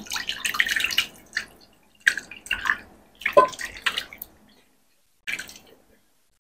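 Lontong sayur, coconut-curry broth with rice-cake chunks, poured from an aluminium pot into a glass bowl. A splashing pour of broth comes first. Then the rice cakes slide out in wet plops in three more spurts, the last near the end.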